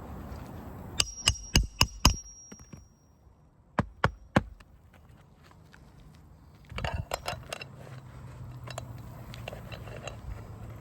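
Hammer driving roofing nails into a shingle: a quick run of five strikes with a metallic ring, three more a couple of seconds later, then a burst of lighter, faster taps.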